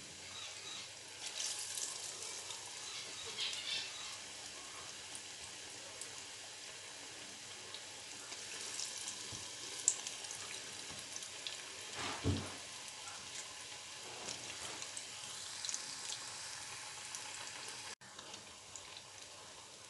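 Batter-coated potato bondas deep-frying in hot oil: a steady sizzle with scattered crackles and pops. A single dull knock sounds about twelve seconds in.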